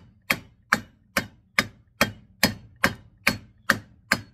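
Mallet striking the old bearing's outer sleeve, used as a driver, to seat a new bearing into a 10-inch aluminum snowmobile wheel hub. Steady, even knocks, a little over two a second, each with a short metallic ring.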